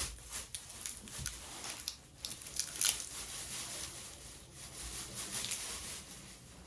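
Plastic snack package crinkling and rustling as it is handled, with many short crackles that die away near the end.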